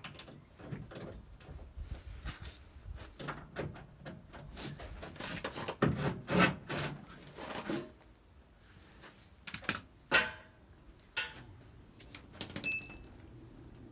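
Irregular metallic clanks and knocks from tools and parts being handled while working under a classic Mini, with a short ringing clink of metal near the end.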